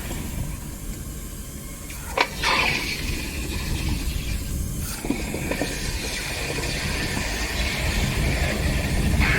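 Home-made propane furnace burner running with a steady hiss and low rumble, with two short sharp clicks about two and five seconds in.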